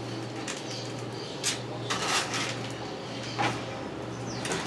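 Scattered short clatters and rustles of wood pieces and papers being moved around on a workbench, over a steady low hum.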